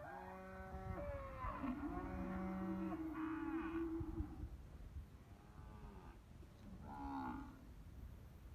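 Several young steers mooing, their long calls overlapping over the first four seconds or so, then fainter single calls about midway and near the end.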